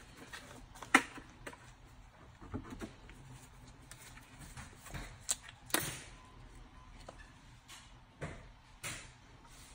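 Scattered light clicks and knocks of plastic motor-oil bottles being handled between pours, the sharpest about a second in and a few more around the middle and near the end.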